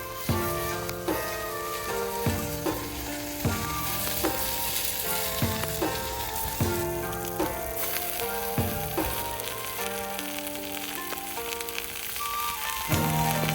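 Food sizzling and frying in a hot pan, a steady crackling hiss, under background music with a slow run of melodic notes.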